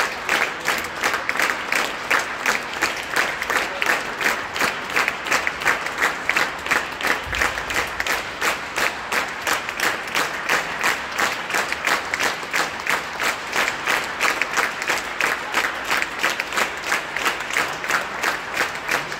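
Audience applauding in unison: a steady, even beat of rhythmic clapping, about two to three claps a second, for a performer's curtain call.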